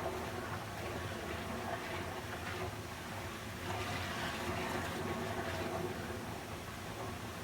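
Water running in a steady, continuous flow, swelling a little about four seconds in.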